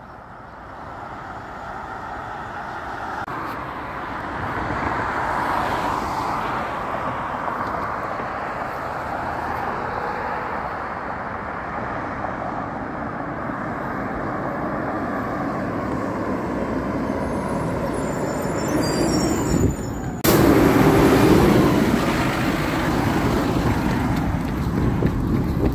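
Road traffic passing: steady tyre and engine noise that swells over the first few seconds. About 20 s in, after a sudden cut, a garbage truck's engine is heard close by and louder as the truck drives along the street.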